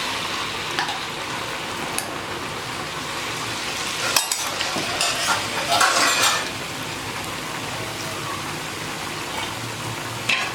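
Ragi bondas deep-frying in hot oil, a steady sizzle, with a metal utensil clinking and scraping against the pan in a cluster about four to six seconds in.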